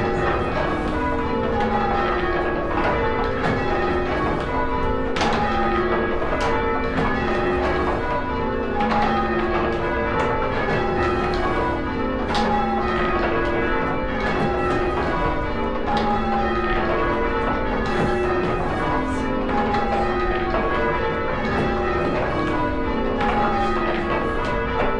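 A ring of six church bells change ringing, each bell struck in turn in a steady, even rhythm, every stroke's tone ringing on into the next.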